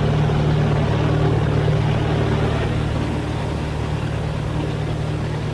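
Maule bush plane's piston engine and propeller running at takeoff power as a steady, loud drone during a short-field takeoff roll on a grass strip.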